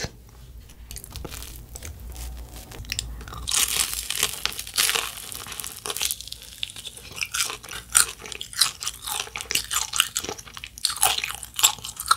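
Close-up crunching as a fried, pizza-flavoured cheese ball is bitten into, its crisp crust crackling about three and a half seconds in, followed by a steady run of crunchy chewing.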